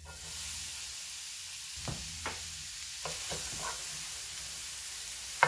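Diced onion and garlic sizzling as they hit hot oil in a sauté pan, a steady hiss that starts at once. A wooden spatula stirs them, with scattered light taps on the pan and a sharper knock near the end.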